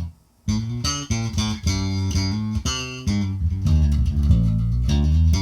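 Electric bass guitar played through an amp with the optical compressor pedal bypassed: after a short pause, a quick run of plucked notes with uncompressed dynamics.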